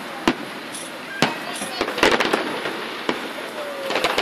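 Aerial fireworks bursting: single sharp booms roughly a second apart, then near the end a dense run of crackling reports as many shells burst together.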